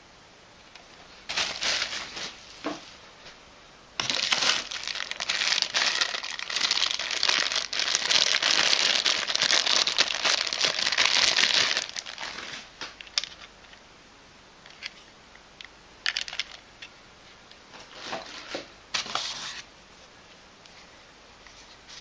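Plastic packaging crinkling and rustling as it is handled and unwrapped: a short spell, then about eight seconds of steady loud crinkling from about four seconds in, then a few brief crinkles.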